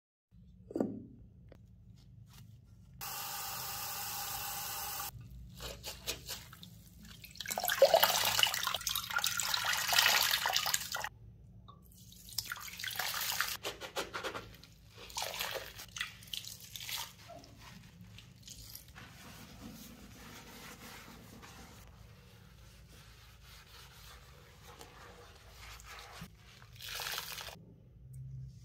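A bathroom sink's pop-up drain stopper clicks as it is pushed down. The tap then runs briefly, followed by splashing water and a sponge scrubbing the basin in soapy water, in uneven bursts that grow quieter later on.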